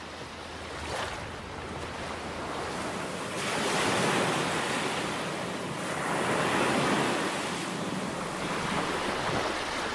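Surf washing up onto a sandy beach, a steady rushing that swells louder twice as waves come in, with some wind.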